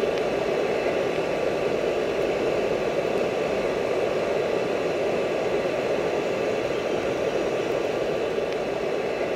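Hair dryer blowing air through a steel pipe into a charcoal-briquette furnace: a steady rushing noise of the blower and the forced-draught fire, with no let-up, while aluminium melts in the crucible.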